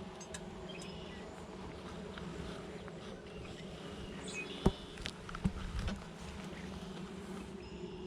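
A colony of honeybees buzzing in a steady hum at the hive, with a sharp knock about halfway through and a few softer knocks just after as the hive is closed up.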